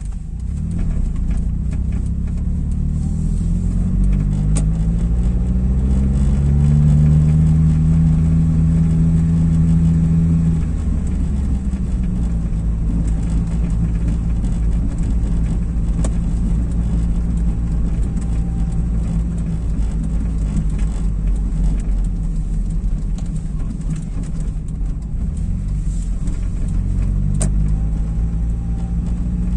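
Car engine and road noise heard from inside the cabin while driving. The engine note climbs as the car accelerates a couple of seconds in, holds steady, drops back about halfway through, and climbs again near the end.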